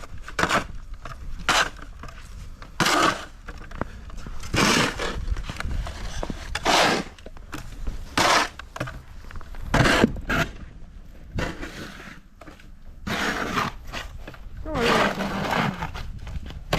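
Snow shovel scraping and pushing snow, in repeated strokes every second or two, over a steady low rumble of wind.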